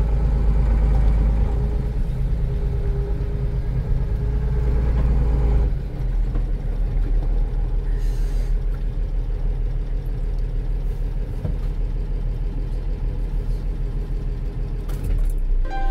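Mercedes-Benz 1418 4x4 truck's diesel engine running with a steady low rumble, the deepest part of the rumble easing off about six seconds in.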